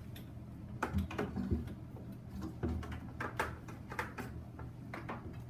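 About ten irregular light clicks and knocks from handling a weighted pick-up hose and the plastic tubing and fittings of a chemical mixing station.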